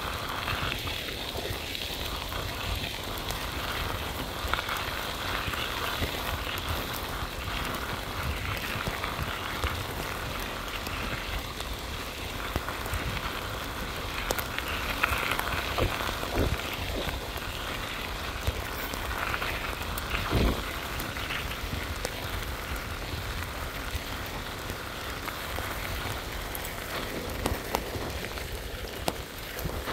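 Steady crackling hiss of bicycle tyres rolling over crushed gravel under falling rain, with wind rumbling on the microphone. A few louder knocks come around fifteen and twenty seconds in.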